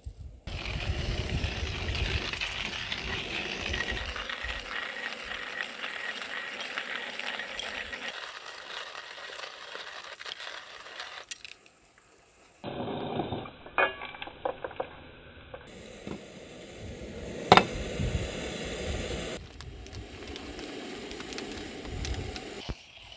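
Dry contents poured out of a bag in a continuous rattling patter for about ten seconds. After that come scattered small metal clinks and knocks, with one sharp click about two-thirds of the way through.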